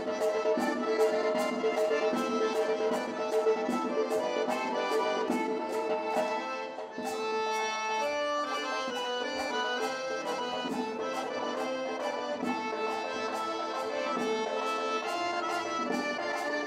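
Accordion playing a lively traditional Circassian dance tune over a steady clapped beat, about three to four claps a second, with a brief break in the music about seven seconds in.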